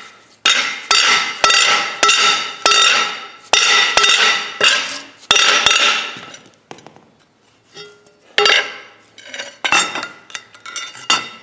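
Hammer blows on a stuck steel part of a Brinly three-point plow, each strike ringing out metallically. The blows come at about two a second, pause for a couple of seconds past the middle, then start again: the part is seized and will not come out.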